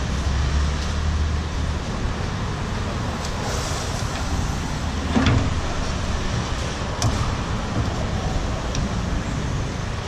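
Steady road-traffic rumble, with a vehicle engine louder in the first two seconds. A few short clicks and knocks stand out, the loudest about five seconds in.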